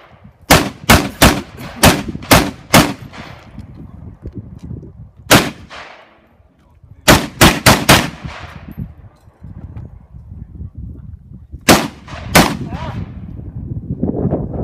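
Rifle shots fired in rapid strings with short pauses between groups: about eight quick shots, a single shot, a fast group of four, then two more, each with a ringing echo.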